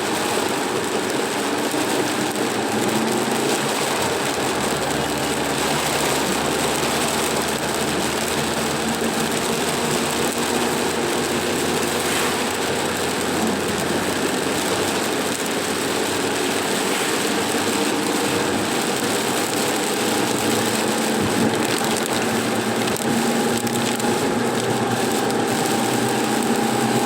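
A car's engine and road noise, steady while driving.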